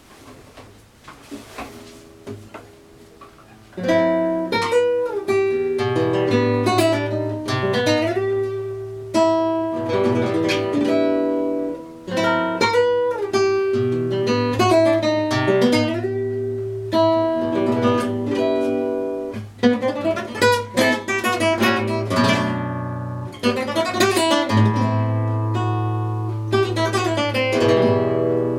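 Acoustic guitar music: a few soft plucked notes, then from about four seconds in loud strummed and picked chords over a sustained bass line.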